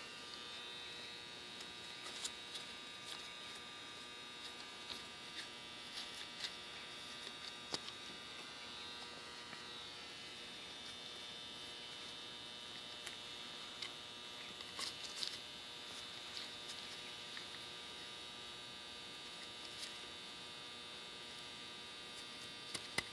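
Steady electrical mains hum, with faint scattered light clicks and taps from parts being handled on the bench.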